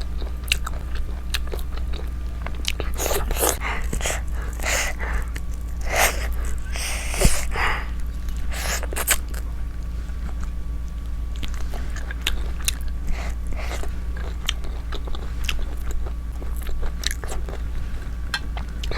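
Close-miked eating: irregular wet chewing and biting, with sharp clicks and smacks scattered throughout, over a steady low hum.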